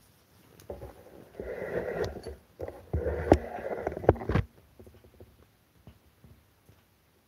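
Rustling of a fleece blanket in two bursts as a cat gets up and moves about on it, with a few sharp clicks during the second burst.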